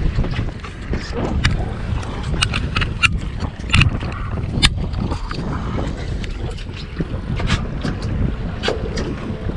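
Wind buffeting the microphone aboard a small boat at sea, a steady rumbling noise, with scattered sharp clicks and knocks on board.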